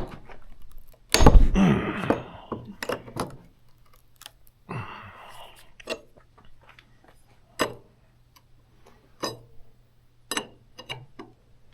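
Scattered sharp knocks and clicks, with a louder, longer scraping clatter about a second in and a shorter scrape near the middle.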